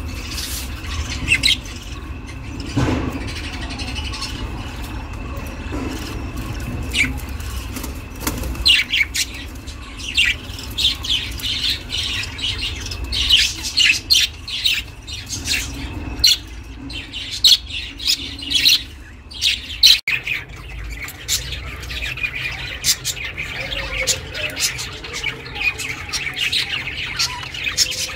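Budgie (pet parakeet) chirping in quick, short chirps, sparse at first and much busier from about eight seconds in, over a low steady hum.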